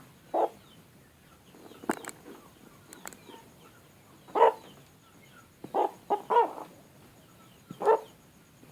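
A chicken sick with a respiratory infection makes a string of short snoring breathing sounds a second or two apart, with a sneeze among them. The owner takes these for snot (infectious coryza).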